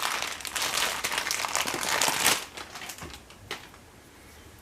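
Plastic packaging crinkling as it is handled for about two seconds, then quieter, with a couple of light clicks.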